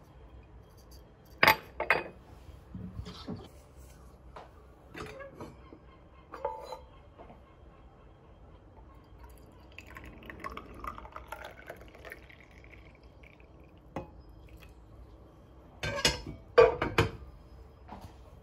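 Dishes and glassware clinking and knocking a few times, the loudest strikes about a second and a half in and near the end. About ten seconds in, liquid is poured for a couple of seconds, its pitch rising as the vessel fills.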